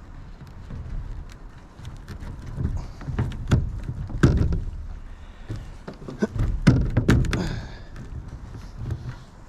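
Irregular knocks and thumps, loudest around the middle, as a length of metal unistrut channel is handled and pressed down onto bolts on a van roof.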